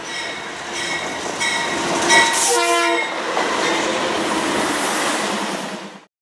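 Train horn sounding a few short blasts and then a longer one about two and a half seconds in, over the continuous rushing noise of a moving train. The sound cuts off abruptly about six seconds in.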